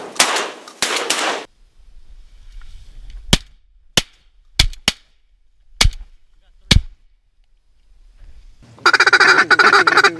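Shotgun blasts right at the start, then half a dozen sharp knocks spread over a few seconds, and near the end a rapid run of loud honking, quacking waterfowl calls.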